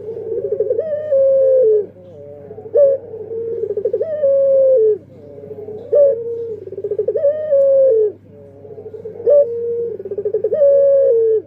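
Male puter pelung dove cooing, about four song phrases roughly three seconds apart. Each phrase is a short sharp note, then a quick rolling stretch, then a long held coo that drops in pitch at the end.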